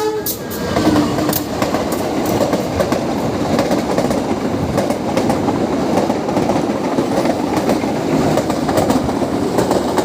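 Joglosemarkerto passenger train running past close by, with a steady loud rush and the repeated clack of its wheels over the rail joints. The last of its horn cuts off just at the start.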